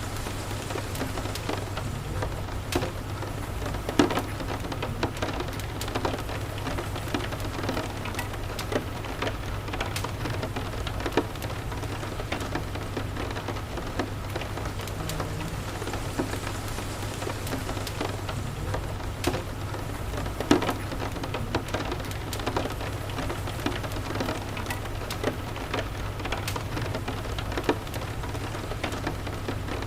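Steady rain with scattered sharp crackles and pops from a fireplace, over a steady low rumble.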